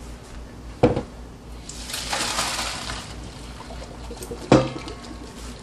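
Pot of boiled pasta water poured out into a colander in the sink: a rush of water lasting about a second and a half, with a sharp clunk shortly before it and another a couple of seconds after.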